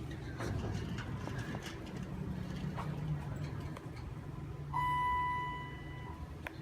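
ThyssenKrupp elevator running with a steady low hum, and a single electronic chime about five seconds in that rings out and fades over a second or so.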